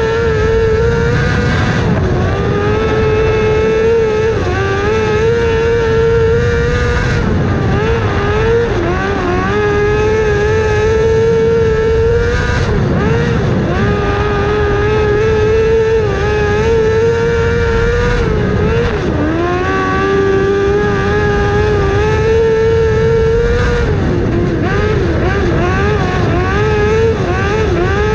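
Small dirt-track race car's engine heard from onboard, running at high revs down the straights, its pitch dropping and climbing back as the driver lifts for each turn, about every five to six seconds.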